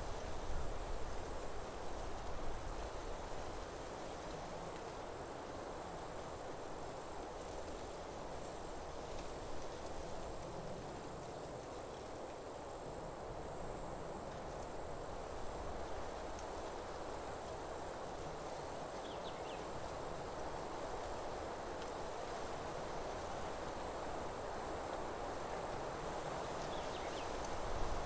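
Forest insects, crickets or similar, trilling in one steady high-pitched drone, over a soft, even rushing hiss.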